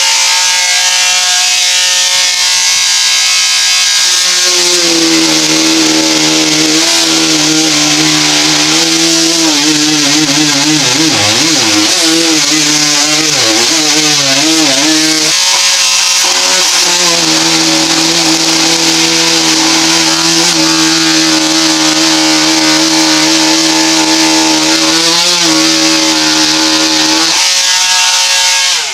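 A power tool cutting away part of the molding, running with a loud steady whine over a hiss; its pitch wavers and sags under load in the middle, drops out briefly, then runs steady again until it stops at the end.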